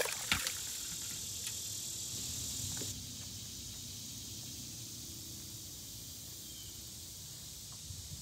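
Insects buzzing steadily in the trees, with a few sharp clicks and knocks at the start. About three seconds in the buzzing cuts off, leaving a faint steady outdoor background.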